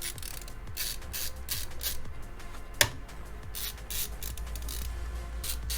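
Screwdriver driving the CPU cooler's mounting screws, in a series of short scraping bursts, with one sharp click about three seconds in.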